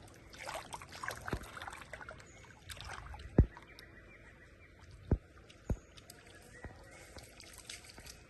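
Water splashing and sloshing in a swimming pool, with four dull thumps, the second of them the loudest.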